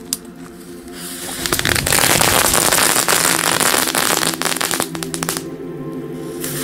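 A mat of small Lady Cracker firecrackers going off in a rapid, crackling string of bangs. It starts about a second in and thins out near the end.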